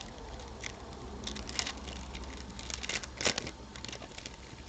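Sealed trading-card packaging being opened by hand: irregular crackling and rustling of the wrapper and cardboard, with a louder cluster of crackles about three seconds in.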